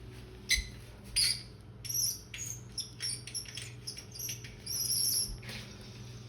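Powered window blinds squeaking as they move: a couple of clicks, then a run of short high-pitched squeaks for about three seconds. The squeak is from the blind mechanism wanting lubrication, as the owner believes.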